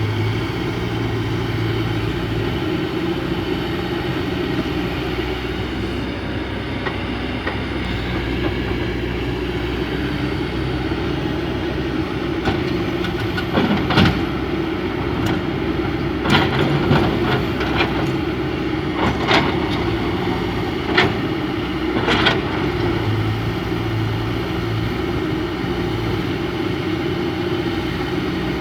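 Excavator's diesel engine running steadily while loading a dump truck. About halfway through comes a run of sharp knocks and clanks that lasts several seconds.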